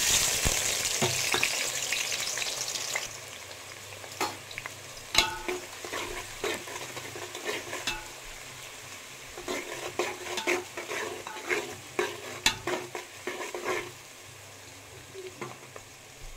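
Sliced onions dropped into hot oil in a metal pot, setting off a loud sizzle that settles after about three seconds into a steadier frying hiss. A metal spoon clicks and scrapes against the pot as the onions are stirred while they fry toward brown.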